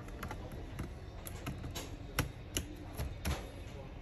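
Laptop battery pack being set into its bay in the plastic chassis and pressed into place: a run of light clicks and taps, about eight over a few seconds, the sharpest a little past the middle.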